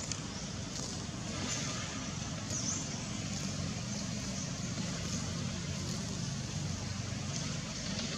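Steady low hum of an engine running, with a few faint high chirps above it.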